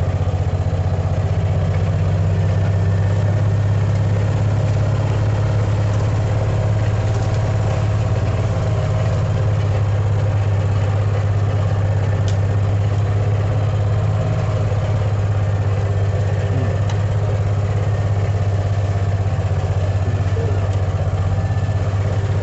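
A vehicle's engine running at a steady low hum, unchanged throughout.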